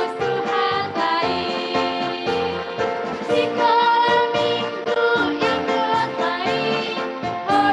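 Children's Sunday-school song, sung with instrumental backing.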